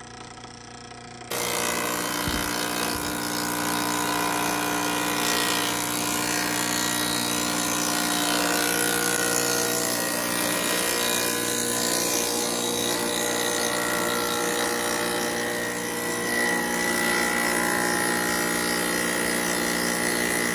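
A 3-in-1 wood planer machine's four-blade cutter head runs at speed, a steady whine with cutting noise as wood is fed past it. It comes in abruptly about a second in.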